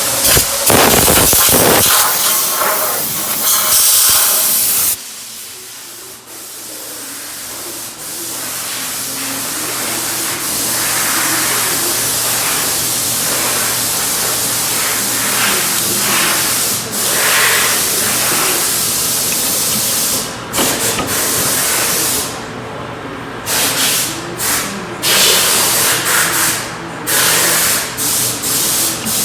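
Machine tool running during metal machining: a steady motor hum under loud hissing noise. The noise is loudest for the first few seconds, drops suddenly, then builds back up and cuts out briefly several times near the end.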